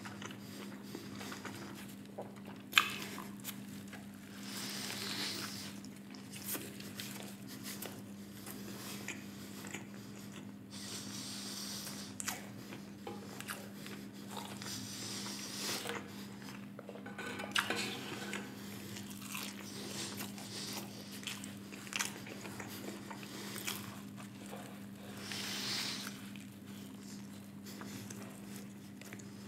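Close-miked eating: biting into and chewing a Flamin' Hot Cheetos burger, with crunches and wet, squishy mouth sounds. A sharp, loud crunch comes about three seconds in, over a steady low hum.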